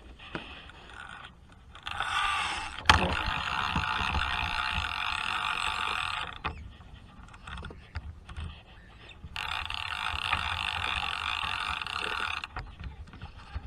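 Hardy Altex No. 2 Mk V fixed-spool reel being wound: a steady gear whirr in two spells, about four and three seconds long, with one sharp click about three seconds in.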